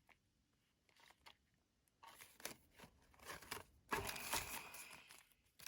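Small loose screws and spare hardware being handled and sorted, with light clicks, rattles and rustling that start about two seconds in and grow busier toward the end.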